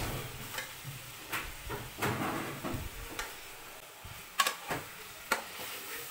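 Chicken pieces sizzling as they are browned in a steel pot, stirred with a metal spatula that scrapes and clinks against the pot several times, the loudest clinks a little over four seconds in.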